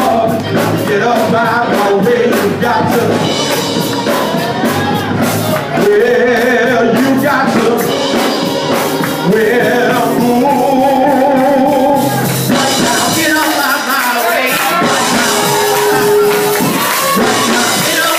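Live gospel singing with a tambourine keeping a steady beat.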